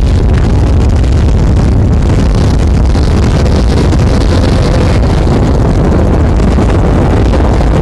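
Desert trophy truck's engine running hard at speed, a steady loud engine noise with wind noise on the microphone.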